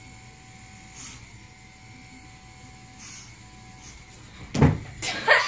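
Quiet room tone with a faint steady hum, broken about four and a half seconds in by a single loud thump, and a voice starting just after it.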